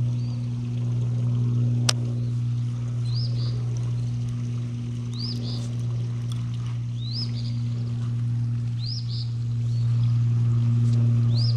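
A steady low machine-like hum runs throughout, with a bird repeating a short rising two-part chirp about every two seconds over it. A single sharp click comes about two seconds in.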